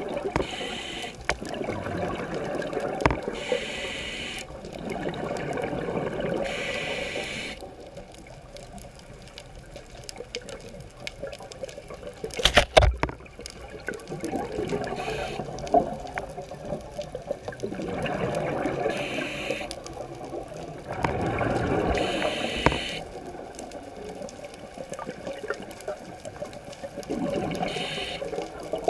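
Scuba diver breathing underwater through a regulator: short hissing inhalations alternating with longer bubbling exhalations, a breath every few seconds. A sharp knock about halfway through, the loudest sound, falls in a short lull in the breathing.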